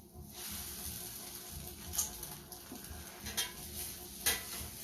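Food sizzling on a grill, with three short sharp metal spatula clicks or scrapes against the cooking surface.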